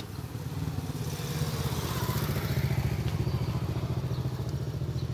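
A small engine running steadily at a constant speed, with a fast even low pulsing.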